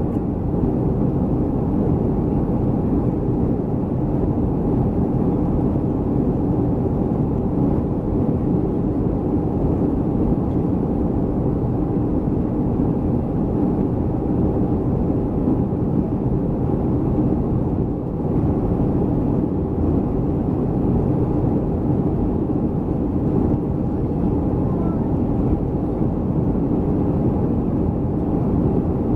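Steady cabin noise of a Boeing 737-300 airliner in flight: an even, dense low rumble of its CFM56 turbofan engines and rushing airflow, with no break.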